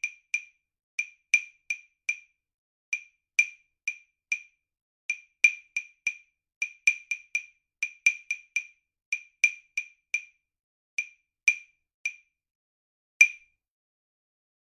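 Percussion accompaniment of short, sharp wood-block clicks, mostly four strokes to a bar of 5/8. The tempo slows, speeds up and slows again, a deliberate ritardando and accelerando for the player to follow. It ends on a single louder accented stroke about 13 seconds in.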